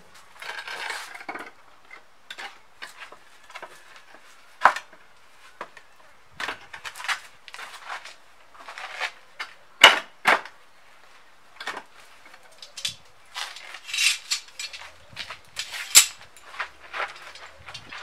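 Irregular sharp knocks and clicks from tools and wooden boards being handled, with short scraping sounds in between; the loudest knocks come as a close pair about ten seconds in and another about sixteen seconds in.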